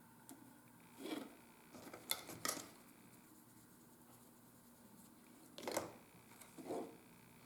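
Hand tools and leather being handled at a workbench: a handful of brief clinks and scrapes, a second or more apart.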